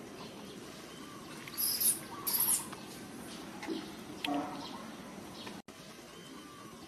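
Macaques' high-pitched squeaks: two short squeaks about two seconds in, then a brief lower call a little after four seconds, over a faint steady hiss.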